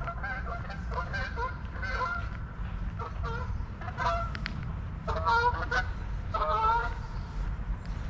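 Geese honking, a run of repeated short calls that overlap, loudest about five to seven seconds in, over a steady low rumble.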